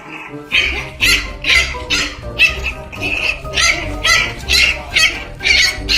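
A small puppy yapping over and over, about two sharp yaps a second, an angry, worked-up puppy. Background music plays under it.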